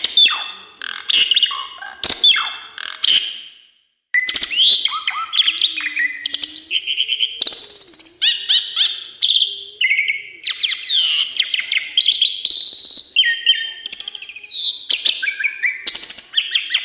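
Javan pied starling (jalak suren) singing a long, varied song of rapid whistles, slurred notes and chattering phrases, packed with mimicked calls of other birds. It breaks off briefly about four seconds in, then sings on without a pause.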